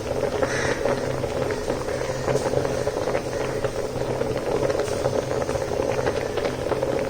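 Rice boiling in a pot: a steady bubbling with many quick small pops.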